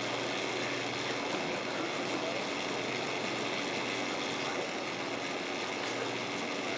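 A vehicle engine running steadily, an even, unchanging hum with a faint constant tone beneath it.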